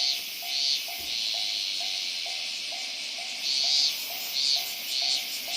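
Japanese railway level-crossing warning bell ringing its repeated 'kan kan' ding, about two strikes a second, steady throughout. A louder high buzzing hiss swells and fades over it.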